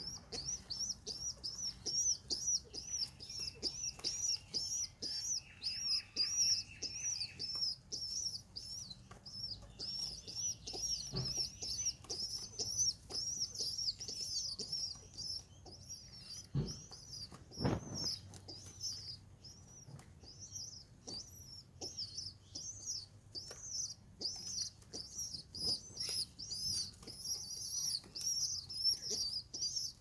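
Pigeon squabs begging to be fed: an unbroken stream of rapid, high-pitched squeaky peeps, several a second, mixed with wing fluttering and rustling in the nest, and one louder thump a little past halfway.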